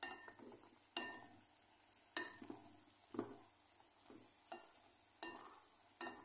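Wooden spatula stirring small sausages in a pan, knocking and scraping against the pan about once a second, seven strokes in all.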